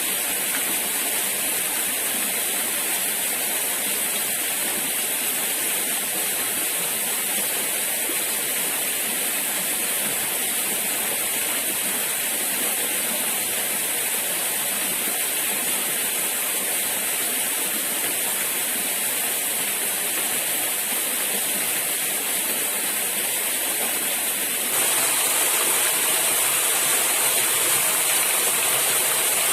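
Steady rushing of flowing river water, stepping up slightly louder about 25 seconds in.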